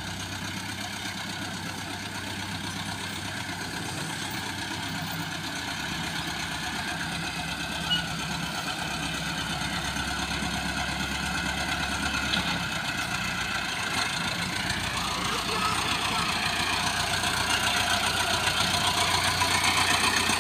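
Farm tractor's diesel engine running, growing steadily louder as the tractor drives closer.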